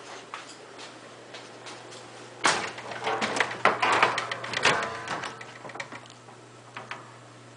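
A burst of clicking and rattling, like things being handled, starting about two and a half seconds in and lasting a couple of seconds, over a steady low hum.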